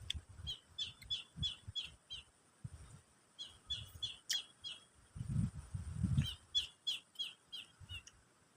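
A bird calling in quick runs of short chirps, about four a second, in three bouts with short pauses between. Brief low muffled sounds come in about five seconds in, over a faint steady high hiss.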